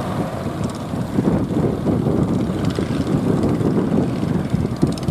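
A sekoci fishing boat's engine droning steadily as it runs, heard as a loud, rough, low rumble with no breaks.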